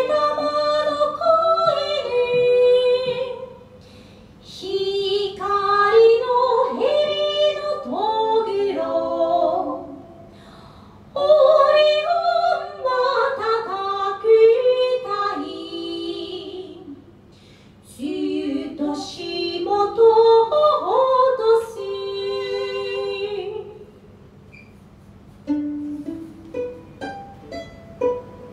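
A woman sings a slow Japanese song unaccompanied, in four long phrases with short pauses between them. Near the end a few short plucked string notes begin.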